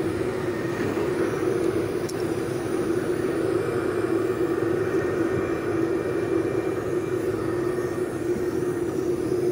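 A steady mechanical drone with a constant low hum, unchanged throughout, like a machine or engine running.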